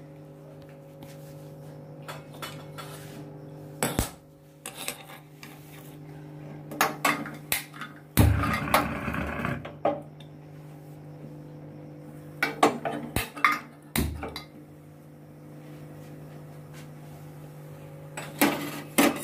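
Scattered clinks and knocks of a steel bowl, spoon and a kadhai being handled on a gas stove, with a short rushing burst about eight seconds in. A steady low hum runs underneath.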